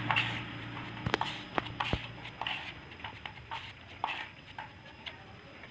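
A few sharp clicks and knocks, the three clearest between about one and two seconds in, among scattered lighter knocks of handling, while the tail of background music fades out.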